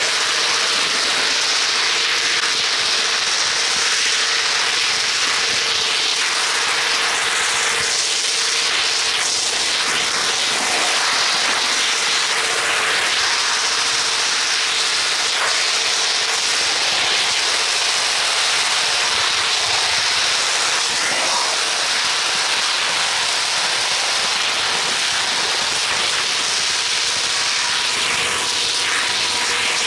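Onboard sound of a camera wagon rolling along model railway track: a steady rushing wheel-and-rail noise with a constant hum underneath and a few faint clicks.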